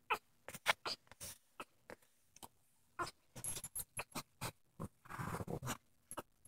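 Mother dog moving and licking on a blanket while whelping: irregular short wet clicks and smacks, with a longer rustle about five seconds in.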